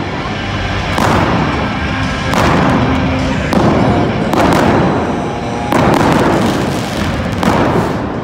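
Pyrotechnic flame cannons firing in a series of about six sudden bursts of rushing noise, each fading over a second or so, over arena music.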